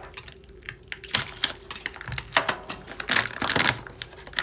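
Vacuum-sealed plastic bag around a spool of 3D-printer filament being worked open by hand: irregular crinkles, rustles and sharp snaps, loudest about three seconds in.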